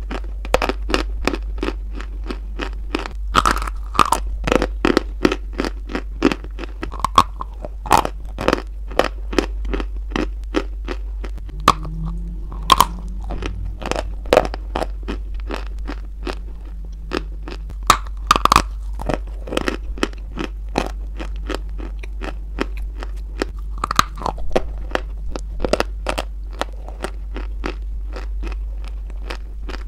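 Close-miked crunching and chewing of a lump of white chalk: many sharp, crisp crunches coming irregularly as it is bitten and chewed.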